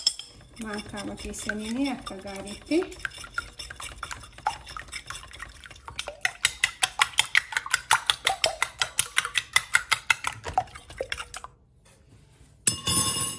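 Metal spoon beating liquid against the sides of a glass bowl. First come irregular clinks, then a quick, even rhythm of about six strokes a second that stops about a second and a half before the end. A short, louder noise follows near the end.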